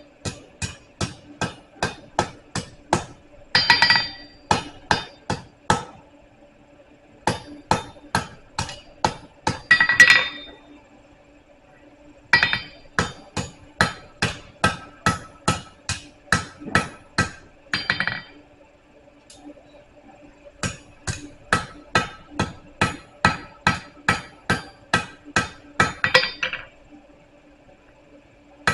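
Hand hammer striking hot steel on an anvil, drawing out a taper and rounding it. There are four runs of steady blows, about two a second, with short pauses between, and each run ends in a louder, ringing cluster of strikes. A steady low hum runs underneath.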